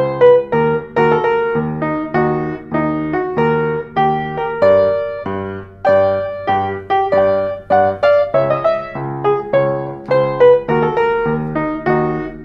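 Baldwin upright piano played solo: a flowing stream of notes, about three or four a second, each struck and left to ring.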